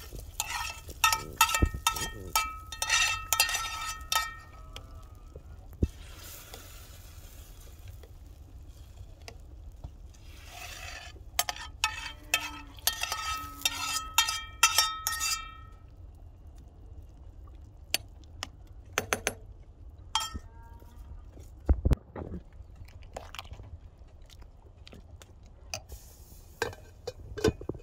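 Metal spoon scraping and knocking against a metal frying pan in quick runs of ringing clinks as fried tomato sauce is scraped off it into a soup pot. There are two such runs, one at the start and one about halfway through, with a few single clinks later.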